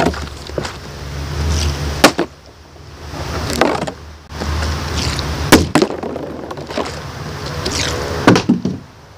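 Partly filled plastic water bottle being flipped and landing on asphalt: three sharp knocks about three seconds apart, the last followed by a couple of smaller bounces. Wind rumbles on the microphone throughout.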